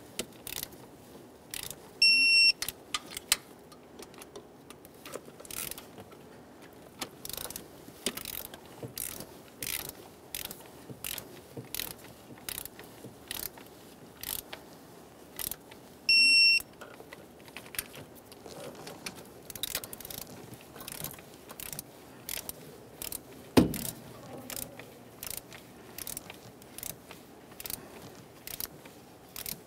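Ratchet of a torque wrench clicking in quick runs as the thermostat housing mounting bolts are tightened to 89 inch-pounds. Twice, about two seconds in and again about sixteen seconds in, there is a short high electronic beep: the wrench signalling that the set torque has been reached.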